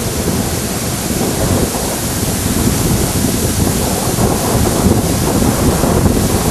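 Wind buffeting the phone's microphone: a loud, steady rush with uneven low rumbling.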